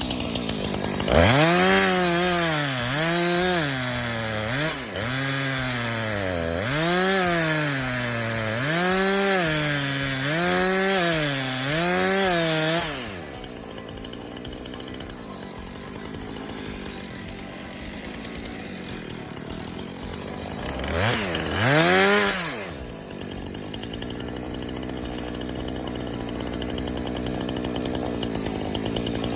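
Jonsered CS2255 two-stroke chainsaw revving up and down over and over for about twelve seconds, its pitch rising and dropping with each pass, as in bucking or felling birch. It then drops back to a lower steady run, with one more short rev a little past the 20-second mark.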